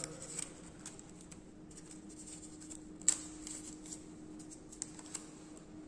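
Faint handling sounds of a razor blade being unwrapped from its paper wrapper: small scattered clicks and paper crinkling, with one sharper click about three seconds in. A faint steady hum runs underneath.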